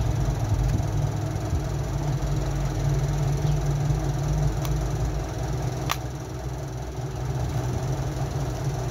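Steady low mechanical hum, with a few sharp clicks near the middle as the plastic clips of a Samsung Galaxy J6's casing are pried loose.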